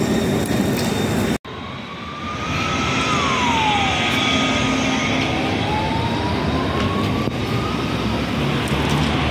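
Solaris Trollino 12 trolleybus passing close, its electric traction drive giving a whine that rises, drops sharply about four seconds in, then climbs again for several seconds, over tyre and road noise. The sound cuts out briefly about a second and a half in.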